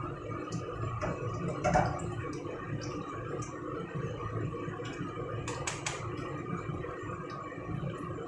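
Chopsticks and a wooden spatula clicking against a perforated metal strainer and a wok while fried battered chicken is lifted out of the oil, with the sharpest clack about two seconds in and a few more near the middle. A steady low hum runs underneath.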